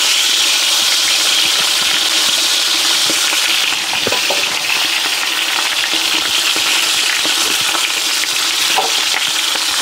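Beef top round roast searing in hot lard in a cast iron pot: a steady, loud sizzle with small crackles as the meat's crust chars.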